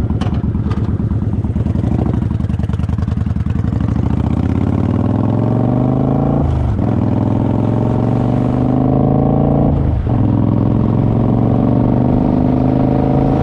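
Kawasaki Vulcan 900 V-twin engine pulling away and accelerating, its note rising steadily through each gear and dipping briefly at two upshifts, about six and a half and ten seconds in. Two short clicks sound at the start.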